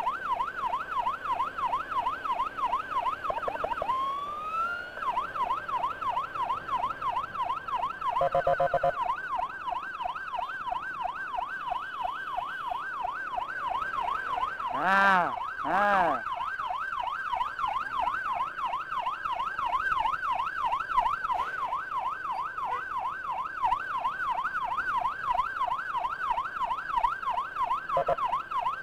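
Emergency siren on a fast yelp, sweeping up and down about four times a second. About four seconds in it breaks into a short rising wail before the yelp resumes. A steady horn blast sounds for about a second near nine seconds in, and two short blasts about a second apart come near the middle.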